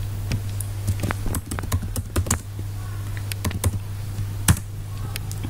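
Computer keyboard typing: short, irregular key clicks, with one louder click about four and a half seconds in. A steady low hum runs underneath.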